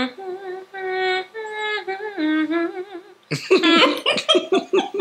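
A voice humming a slow tune in long, held notes that step up and down in pitch. It breaks off about three seconds in into short, choppy laughing voices.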